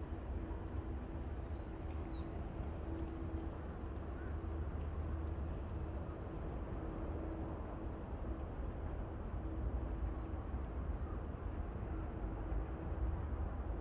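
Forest ambience: a steady low rumble with a faint hum, and a bird calling faintly twice with short chirps.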